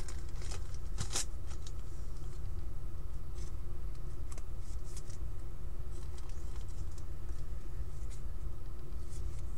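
Trading cards being handled and set down on a table: light, scattered clicks and rustles of card stock over a steady low hum.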